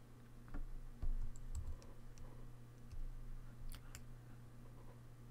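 Faint, scattered clicks and taps from a computer mouse and keyboard, a few of them spread across several seconds, over a steady low hum.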